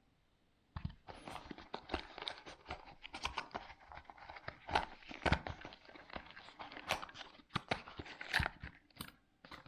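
Packaging being handled and opened: dense crackling, crunching and rustling of plastic and cardboard with scattered clicks, starting about a second in.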